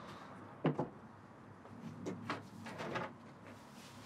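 A few scattered knocks and scrapes from people shifting about on a rusty metal stair and railing. The strongest knock comes just under a second in, with softer ones later.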